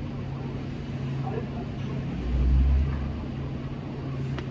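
Steady low mechanical hum, with a brief louder low rumble a little over two seconds in.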